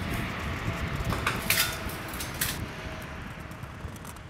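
Workshop room noise: a low rumble with a few sharp clicks and knocks of objects handled on a workbench, fading out near the end.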